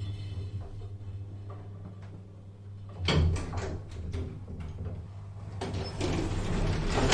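Elevator car humming steadily as it travels, then stopping with a loud clunk about three seconds in, followed by a few mechanical clicks. Near the end the doors begin to slide open with a rising rushing sound.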